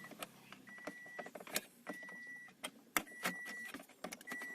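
Toyota Vios warning chime beeping steadily, about one half-second beep every 1.2 seconds, over small clicks and knocks of plastic console parts being handled.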